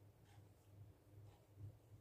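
Near silence: faint room tone with a low hum that swells and fades, and a soft tick about once a second.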